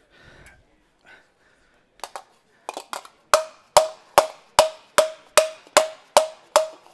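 Rubber mallet striking an aluminium panel held over a post anvil, shaping and straightening the sheet. A few light taps come about two seconds in; from about three seconds there is a steady run of sharp strikes, about two and a half a second, each with a short metallic ring.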